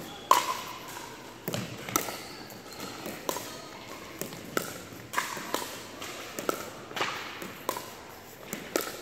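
Pickleball rally: the hollow plastic ball is struck by hard paddles and bounces on a hardwood gym floor, making sharp pops about once every half second to second. Each pop echoes in the hall, and the loudest comes about a third of a second in.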